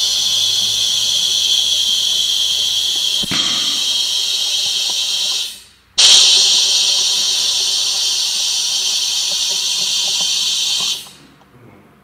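Compressed air hissing into a car tyre through an inflator on the valve. It comes in two long blasts with a short break a little before halfway, and stops about a second before the end.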